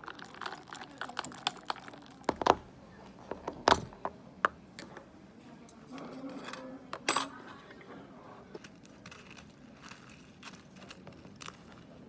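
Ice clinking in a plastic cup of iced coffee as a straw stirs it, with two sharper knocks about two and a half and nearly four seconds in. Later, lighter clicks of cutlery against a plastic food container.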